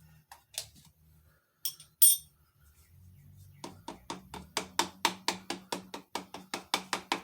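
A few light metal clicks and one sharp ringing clink about two seconds in, then, from about halfway, a rapid even run of light taps, about five a second, on a strap-type piston ring compressor to seat it flat against the engine block.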